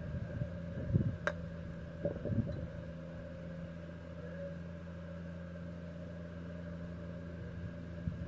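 A single sharp click of a golf club striking the ball on a chip shot, about a second in, with a few soft low thumps around it. Under it runs a steady engine-like mechanical hum.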